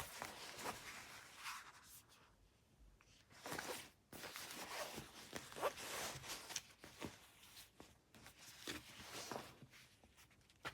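Irregular rustling and scraping of things being handled, in two bouts with a short lull about two seconds in.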